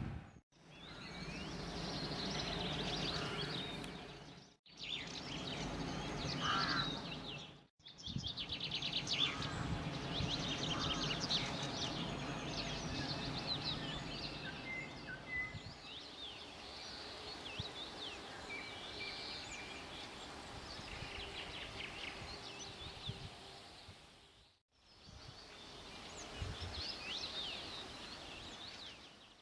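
Songbirds chirping and singing, with a low steady hum from a passing river passenger ship's engines under them through the first half. The sound breaks off into short silences several times.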